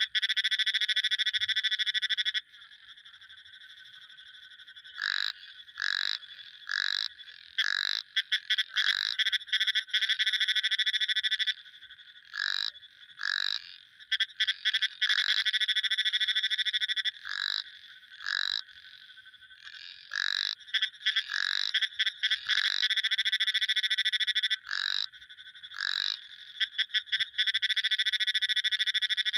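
Frogs calling: loud rapid trills lasting two to four seconds each, alternating with shorter, quieter single croaks repeated about once a second.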